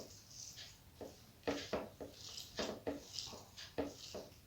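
Close-up eating sounds: a person chewing a mouthful of rice with neem-begun chhechki (fried neem leaves and aubergine), with a string of short, sharp mouth clicks and smacks at irregular spacing.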